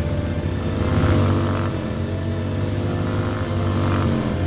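Vehicle engine running steadily, swelling slightly about a second in and again near the end.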